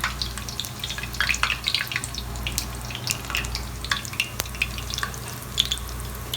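Jangiri batter frying in hot oil: a steady sizzle with many small, irregular crackles and pops, over a steady low hum.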